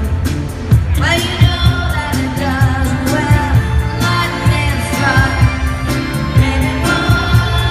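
Live rock band playing: a woman's lead vocal over a steady drum beat, electric guitar, bass and keyboards, heard from among the audience.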